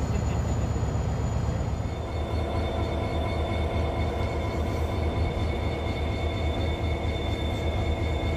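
Irish Rail 071-class GM diesel locomotive running as it hauls a train of coaches through the station: a steady deep engine drone. About two seconds in, steady whining tones join the drone and stay to the end.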